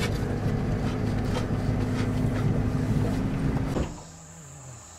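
Pickup truck driving over a grassy field, heard from inside the cab: the engine running with rattles and knocks over the bumps. It stops abruptly near the end, leaving a steady high insect drone.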